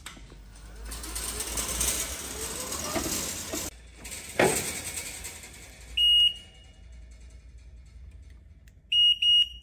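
Electronic beeper on a Hyster PC1.5 electric pallet truck: one short high-pitched beep about six seconds in, then two quick beeps near the end, as the remote key fob is used at the tiller head. Before them there are a few seconds of rustling and a single knock.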